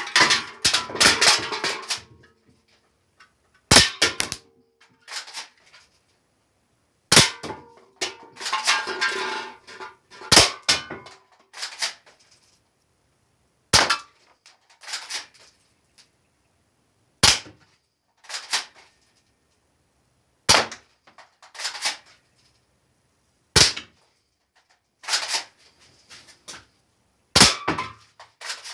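Syma HY015B BB rifle firing single shots, each a sharp crack, about every three seconds. Several shots are followed by a second or two of clattering and metallic ringing as hit targets tumble and ring, the longest right at the start and around the middle.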